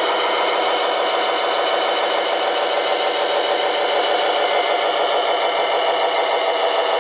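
Steady engine running sound from a scale RC Mercedes-Benz Arocs tractor truck, even and unchanging, with a rattle and a thin sound with no deep bass.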